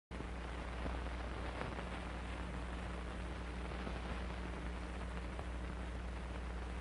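Steady hiss and low electrical hum of an old film soundtrack with no narration or music, with a few faint crackles.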